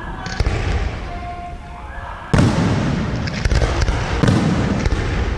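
Aerial firework shells bursting: four loud bangs, each trailing off slowly, the biggest about two and a half seconds in.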